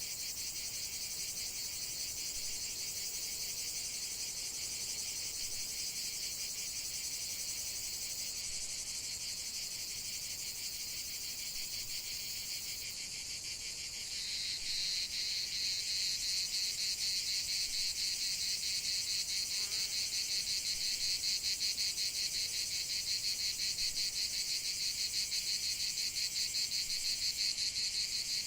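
Chorus of crickets chirping in a dense, high-pitched trill. About halfway through, a louder, rapidly pulsing trill joins in and carries on.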